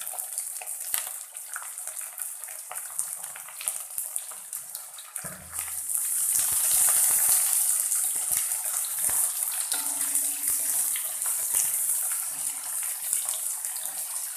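Chopped onions sizzling in hot sunflower oil with garlic and ginger, a steady hiss that grows louder about five seconds in, with occasional clicks.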